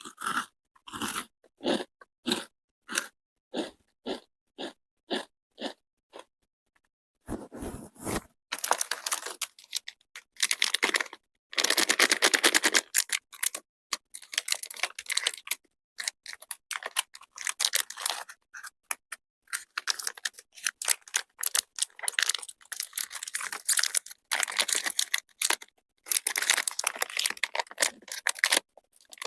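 Crunchy chocolate crunching, with no speech. For the first seven seconds there is a run of separate crisp crunches at about two a second. After that it turns into dense, nearly continuous crackling.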